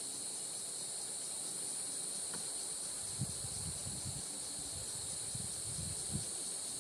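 Steady, high-pitched insect chorus droning without a break in the bush. From about three seconds in there are soft, irregular low rustles.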